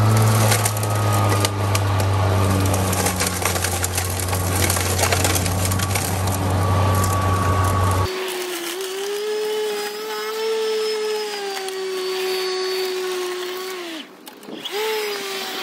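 Atlas 80-volt battery-powered self-propelled lawn mower running while mowing dry grass: a steady motor-and-blade hum with a rushing cutting noise. About eight seconds in, the sound changes abruptly to a higher, thinner whine. Near the end it briefly drops in pitch and picks back up.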